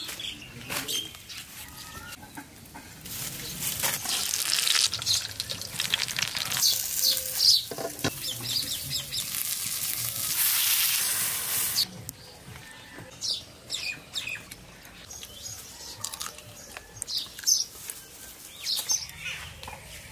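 Leaf-wrapped fish parcels sizzling and crackling on a hot clay plate over a fire: a steady hiss that stops abruptly a little past halfway. After it, birds chirping and chickens clucking on and off.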